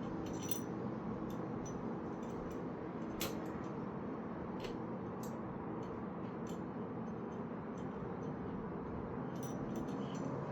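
Scattered small metal clicks and clinks of bicycle parts being handled during assembly, the sharpest about three seconds in, over a steady background hum.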